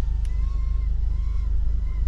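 Steady low rumble inside a parked car, with a faint wavering whine above it and a single short click about a quarter of a second in.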